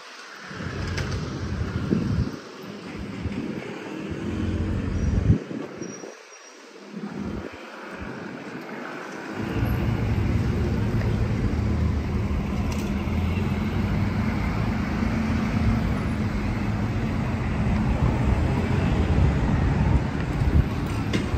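Busy city-street traffic: a steady din of passing cars and vans with passers-by talking. For the first half, wind buffets the microphone in gusts that keep cutting out, and the traffic becomes steady about halfway through.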